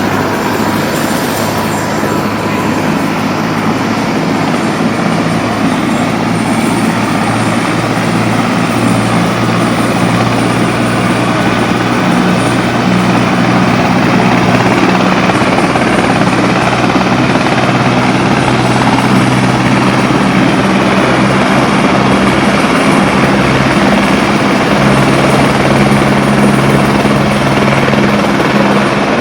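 Helicopter in flight, its rotor and engine noise loud and steady throughout.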